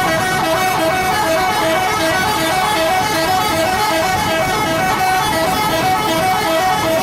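Bus 'telolet' horn, a multi-tone musical horn, sounding its short repeating tune over and over without a break.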